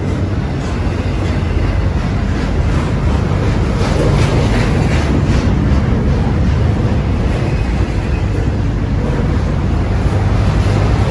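BNSF intermodal freight train's well cars rolling past close by at speed: a loud, steady rumble and rattle of steel wheels on the rails.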